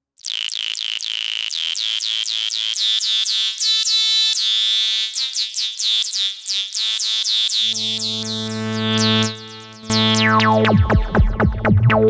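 GForce Oberheim SEM software synthesizer playing its "Chirrup" preset: rapid, repeating chirps that fall in pitch, several a second. About two-thirds of the way in, a low sustained note enters, and fast falling sweeps follow near the end.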